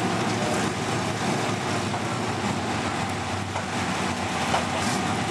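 Open-wheel dirt-track race car engines running at low speed as the cars roll slowly round the track, a steady drone of several engine pitches mixed together.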